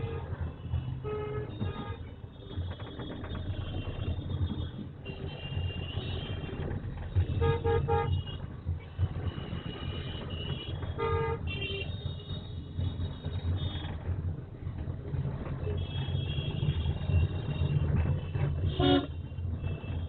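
Road traffic: a steady low engine rumble with a few short car-horn toots, the clearest about seven, eleven and nineteen seconds in.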